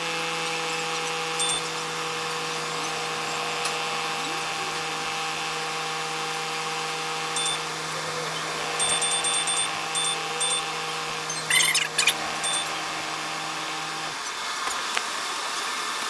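Inside a moving streetcar's cab: a steady electrical hum with several fixed tones that stops about fourteen seconds in. Short high beeps sound now and then, several in quick succession around nine to ten seconds. Two brief harsh scraping bursts come about twelve seconds in.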